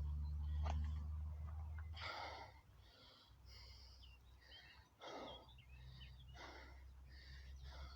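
A man breathing hard, out of breath from burpees, with a few heavy breaths spaced a couple of seconds apart. Small birds chirp faintly, and a low hum fades out about two seconds in.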